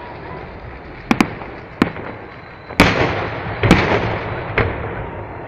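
Aerial fireworks shells bursting overhead: about six sharp bangs, a close pair about a second in, the loudest just before the middle with a long fading echo after it.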